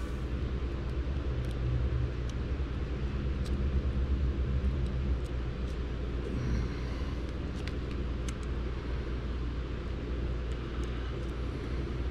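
Steady low rumble with scattered small clicks and taps as fingers work wires and a rubber grommet into a plastic servo case.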